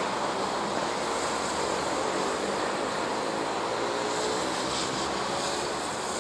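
Steam tank locomotive moving slowly, with a steady hiss of steam and a faint low hum underneath and no distinct exhaust beats.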